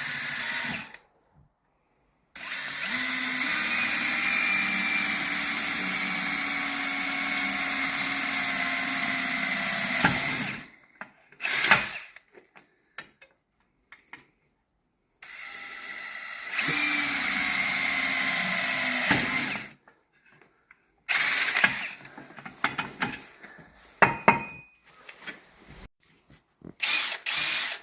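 Power drill boring holes through aluminium angle. It runs steadily for about eight seconds, stops, then runs again for about four seconds, with short bursts and a few sharp clicks in between.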